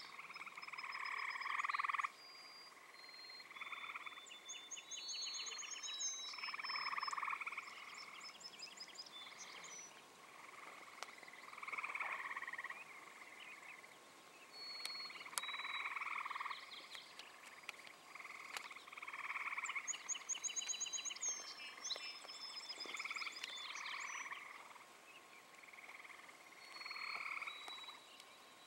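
Frogs calling in a chorus: repeated croaking calls about a second long, one after another with short gaps, with high-pitched chirps and trills above them.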